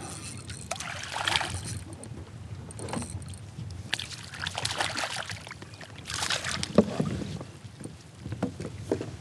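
Water splashing in several irregular bursts beside a kayak as a hooked crappie thrashes at the surface and is scooped into a landing net.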